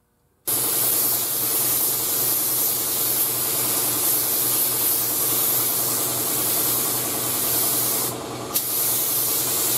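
Paint spray gun spraying clear coat: a loud, even hiss of compressed air and atomised clear starting about half a second in. It eases off briefly a little after eight seconds, ending with a click, then carries on.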